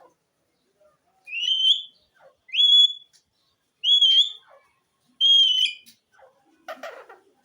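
Pet green parrot whistling four times, each a clear high whistle that rises and then holds, followed near the end by a short, harsher call.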